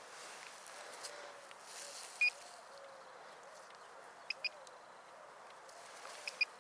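Short electronic beeps from a metal detector's pinpointer being probed over dug soil to locate the target in the clump. One beep about two seconds in, then a quick double beep twice.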